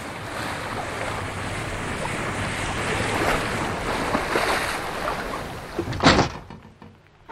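Harbour ambience: a steady wash of waves and wind, broken by a loud sudden sound about six seconds in, after which it fades away.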